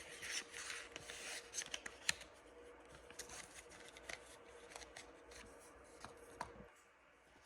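Small parts of a Glock 26 pistol being handled during disassembly: scattered light clicks and scraping of metal and polymer pieces. A faint steady hum underneath stops near the end.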